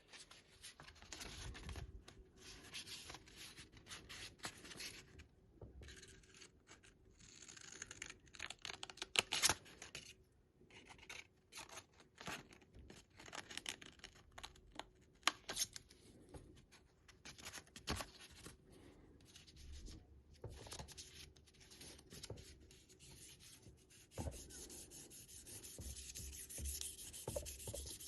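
Sandpaper rubbed by hand over a linseed-oiled wooden kitchen-knife handle, in uneven scraping strokes with short pauses: the finishing sanding of the handle.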